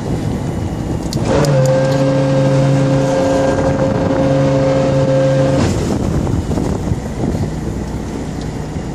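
Electric fishing reel motor whining at a steady pitch as it winds in the line. It starts about a second in and cuts off sharply after about four seconds, over a steady rush of boat engine and wind noise.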